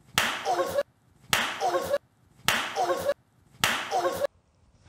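The same short sound replayed four times with silence between: a sudden slap-like hit followed by a brief vocal cry, each lasting under a second.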